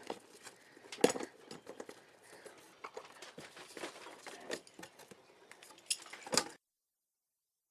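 Large hacksaw working on unclad FR4 fibreglass board: irregular scrapes and metallic clinks, sharper about a second in and again near the end, as the blade catches on the flexible board. The sound cuts off abruptly after about six and a half seconds.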